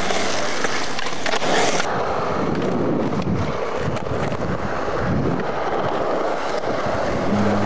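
Skateboard wheels rolling over concrete, a steady rough rumble. The sound changes abruptly about two seconds in.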